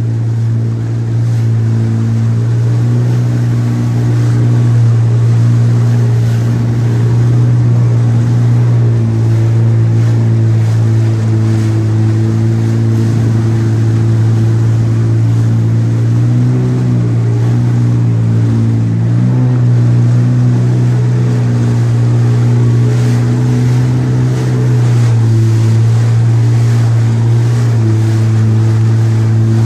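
Jet ski engine running steadily at cruising speed, its note dipping and picking back up a couple of times past the middle, with water rushing past the hull.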